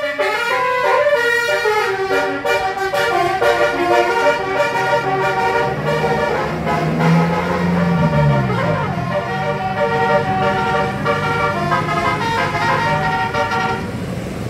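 A bus's 'basuri' telolet horn, a multi-tone musical horn, playing a quick melody of short stepped notes. A lower tone rises and falls underneath around the middle.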